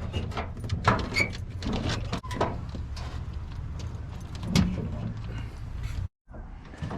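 Inner cover of a Toyota Tundra tailgate being pulled free and handled: a run of clicks, knocks and rattles, the loudest a knock about a second in and a thump a little after the middle.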